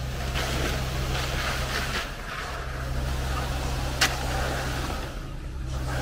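Diesel engine of a concrete line pump running steadily while concrete is pushed through the hose, dipping briefly twice. A single sharp knock about four seconds in.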